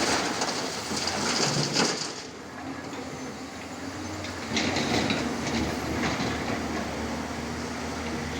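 Excavator's diesel engine running steadily, with two loud bursts of rattling and scraping about a second in and again around the middle, and a few knocks.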